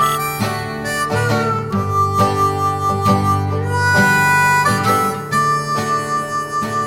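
Background music: a harmonica playing held, bending notes over strummed acoustic guitar.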